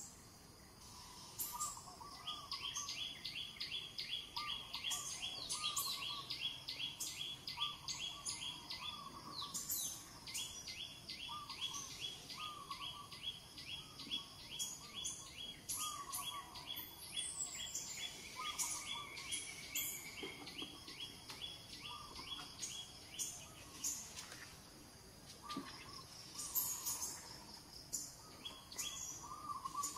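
Birds calling: a high note repeated about four or five times a second runs in long trains, with lower short chirps coming every second or so. The repeated notes break off briefly about three-quarters of the way through.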